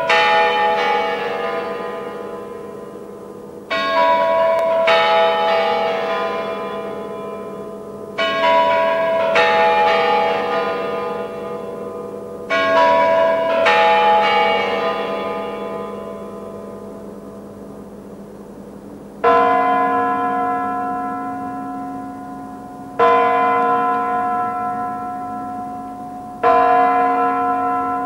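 Clock-tower bells chiming a short descending tune, the phrase starting again about every four and a half seconds, each note ringing on and fading. About two-thirds of the way through, the chime gives way to single hour strokes of a deeper bell, three of them, about three and a half seconds apart.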